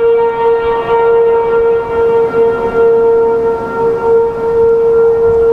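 A distant A.C.A. P-15 outdoor warning siren sounding a steady alert tone that holds one pitch, its level wavering slightly. Wind noise runs underneath.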